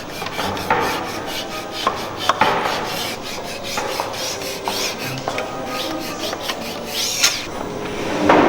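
Scratchy rubbing on the wood of an old table in repeated, irregular hand strokes, with several sharper scrapes standing out.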